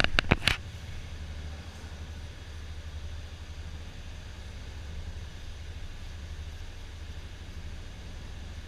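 Yamaha Fazer 250's single-cylinder engine running steadily at an even, low pitch without revving, after a few loud sharp sounds in the first half second.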